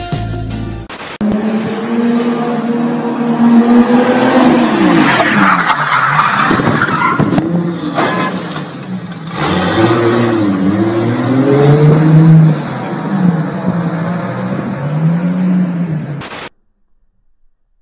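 Car engine revving up and down hard while the rear tyres squeal in a drift slide. It cuts off suddenly near the end.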